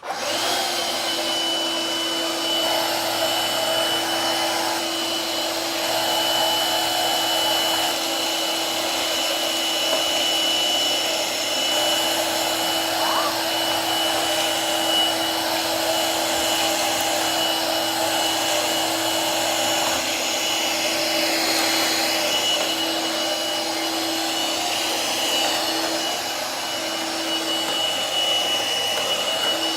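Shark Rotator Freestyle Pro cordless stick vacuum switching on and running steadily on its low, bare-floor setting, with a steady high whine over the suction noise, as it picks up crushed graham cracker pieces.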